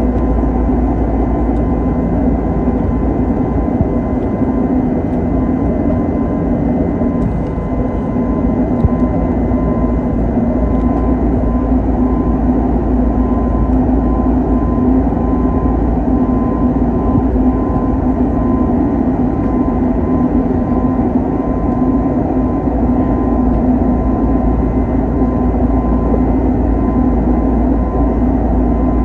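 Airbus A320 jet engines running steadily in flight, heard from inside the cabin beside the wing. A constant loud rumble with a steady hum and whine on top that doesn't change.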